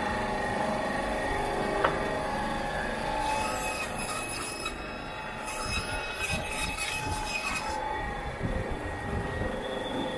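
Meat band saw running with a steady metallic whine, the blade cutting through pork ribs for a few seconds in the middle, adding a harsher high hiss; one sharp click about two seconds in.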